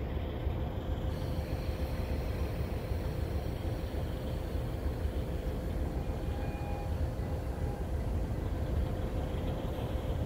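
Slow freight train of covered hopper cars rolling past, a steady low rumble with a faint constant whine, and a short higher squeal about six seconds in.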